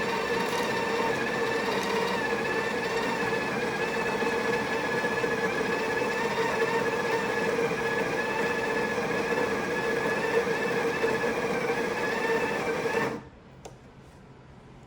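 Breville Barista Express's built-in conical burr grinder running steadily, grinding coffee beans for a double shot, with a steady whine over the grinding noise. It stops abruptly about thirteen seconds in.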